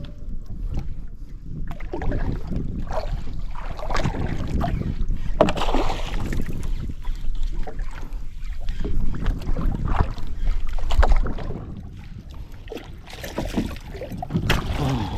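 Wind on the microphone and water noise around a small fishing boat, with irregular knocks and splashes as a king mackerel is brought aboard.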